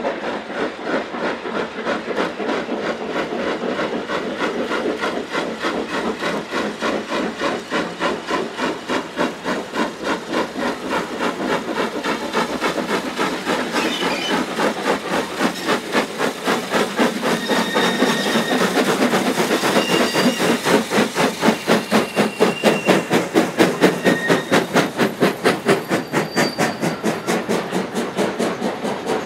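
Two steam locomotives double-heading a passenger train, working hard with rapid, regular exhaust beats and hissing steam. The beats grow louder past the middle as the engines draw near, with a few brief high squeals.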